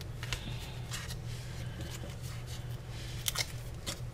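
Paper-craft handling sounds: scattered light clicks and rustles of cardstock as foam adhesive squares are peeled from their backing and pressed onto a paper tag, with a couple of sharper clicks near the end. A low steady hum runs underneath.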